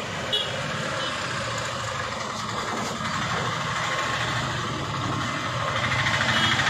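A motor vehicle's engine running steadily over street traffic noise, with a faint regular pulsing near the end.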